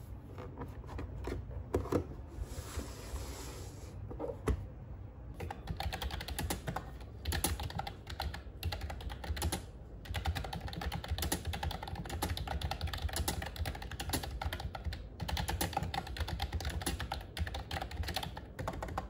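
Typing on a wireless keyboard with round typewriter-style keycaps: a few scattered clicks and knocks at first, then rapid, steady key clicking from about six seconds in.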